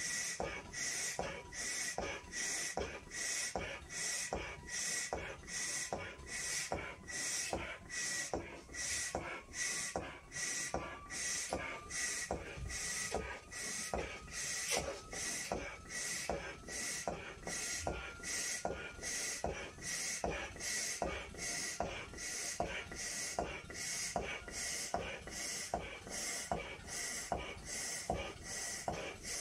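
A 14-inch Belbal latex balloon being blown up by mouth: a steady run of breaths, about one a second, each a rush of air pushed into the balloon.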